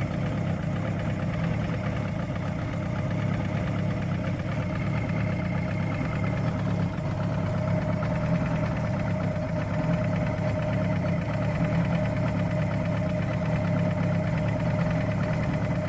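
Johnson V4 two-stroke outboard motor running steadily.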